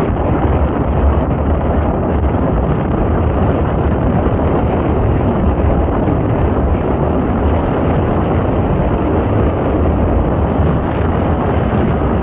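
Wind buffeting the microphone aboard a moving passenger ferry: a steady low rush, with the boat's engine and water beneath it.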